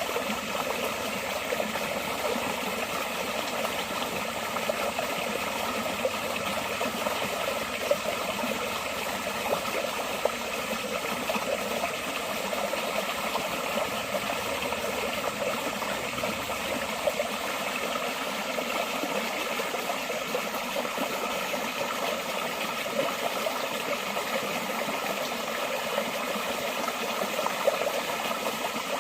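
Forest stream water flowing steadily in an unbroken rush, with a few brief louder moments.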